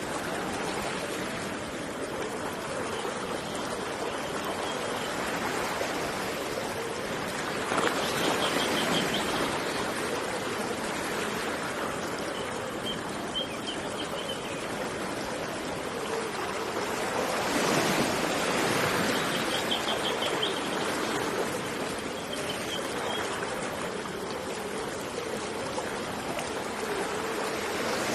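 River water flowing steadily, swelling louder about 8 and 18 seconds in. Short high trills from birds recur every few seconds above it.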